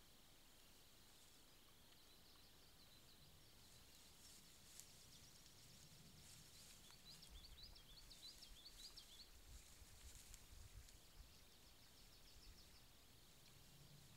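Near silence with faint songbird song: quick trills of short, rising high notes, clearest in the middle and again near the end, over a faint low rumble in the middle.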